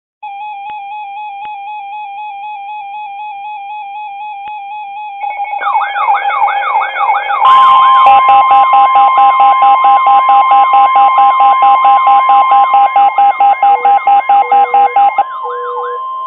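Weather alert radio receivers sounding electronic alert tones for a snow squall warning. A warbling tone is joined about five seconds in by wavering siren-like sweeps and then rapid beeping about five times a second. From about halfway through, a steady tone near 1 kHz, the NOAA Weather Radio warning alarm tone, runs under the beeping.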